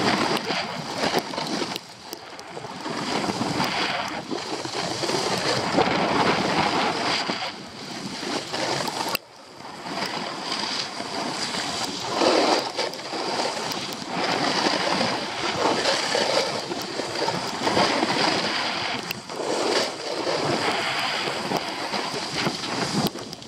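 Skis scraping and hissing over the snow with wind rushing over the microphone, the noise rising and falling every couple of seconds.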